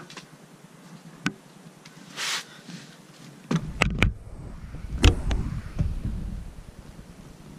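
Handling noise as a scoped rifle is picked up and brought to the shoulder inside a fabric hunting blind: scattered clicks and knocks, a brief rustle, and a cluster of knocks with a low rumble, loudest with a heavy thump about five seconds in.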